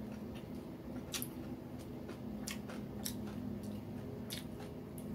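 A person chewing crisp fried food with the mouth close to the microphone, giving a few sharp crunches and clicks spread out over a few seconds, over a steady low hum.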